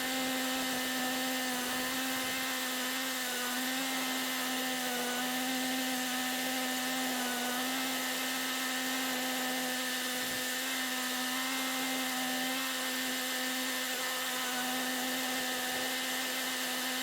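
Kubota tractor's engine running at a steady speed while it tows a dethatcher, a steady whine that wavers slightly in pitch, heard from a camera mounted on the tractor.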